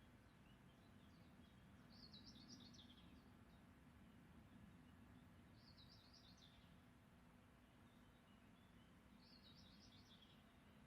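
Near silence, with a small bird singing faintly: three short twittering phrases about three and a half seconds apart, over a faint steady low hum.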